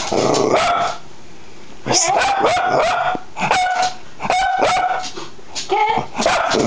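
Cavalier King Charles spaniel barking in a rapid string of short, high barks, pausing for about a second near the start.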